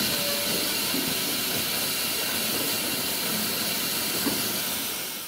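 Steady hiss of steam from Baldwin 4-6-0 tank locomotive WD778, fading out near the end.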